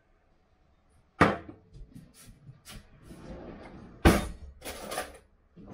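Kitchen clatter of cookware being handled: two sharp knocks, about a second in and about four seconds in, with lighter clicks and scraping between them.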